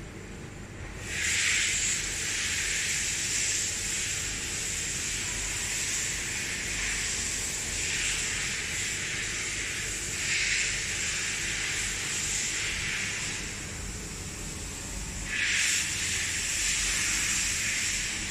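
Steady hiss with a thin, high steady whine in it, swelling louder about a second in and again near the end.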